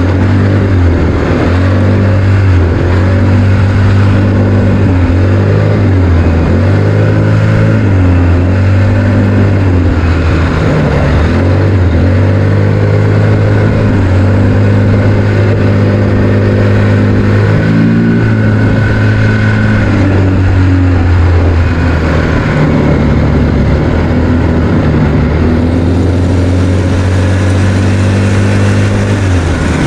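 ATV engine running under way, loud throughout, its pitch holding steady for stretches and rising and falling with the throttle.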